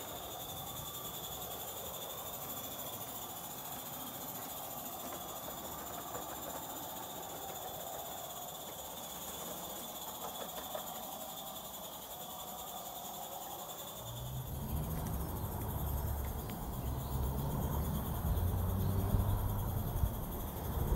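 Small live-steam garden railway locomotive, an Accucraft 2-4-2 tank engine, running with a steady hiss of steam. About fourteen seconds in, an uneven low rumble comes in and grows louder.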